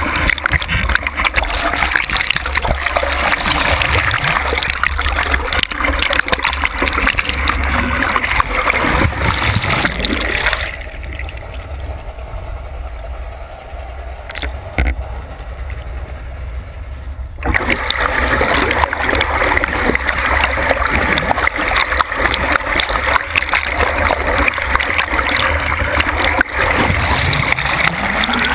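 Lake water rushing and splashing over a towed ScubaBoard and its GoPro as it ploughs through the surface. About eleven seconds in, the board dives under and the sound turns muffled and much quieter. When it surfaces about seven seconds later, the loud splashing comes back.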